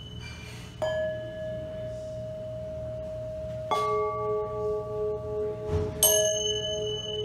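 Metal bowls on the floor struck with mallets: three strikes a few seconds apart, each leaving clear, steady ringing tones that sustain and overlap with the ones before.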